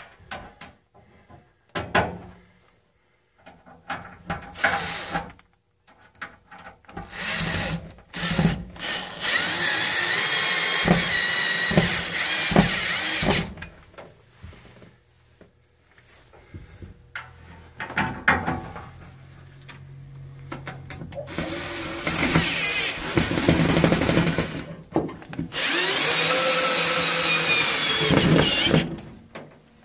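Power drill driving screws through a sheet-metal heat shield, in several runs of a few seconds each. Clicks and knocks from handling come between the runs.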